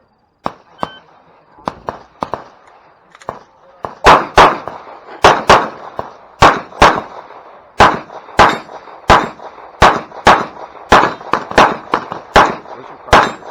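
A shot timer's start beep about a second in, then rapid fire from a Glock pistol starting about four seconds in: some twenty sharp shots, mostly in quick pairs, to the end as the competitor runs a stage.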